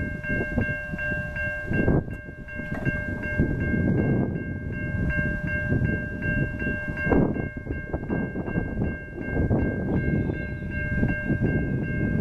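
Railroad warning bell ringing rapidly and steadily, about four strikes a second, over the low rumble of an approaching train.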